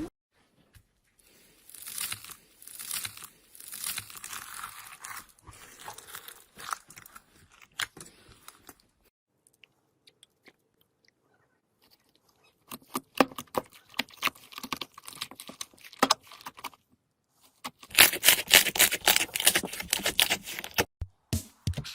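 Slime being pressed, stretched and poked by hand, giving crunchy crackling and sharp clicking pops in several separate runs with short quiet gaps, the densest crackling near the end.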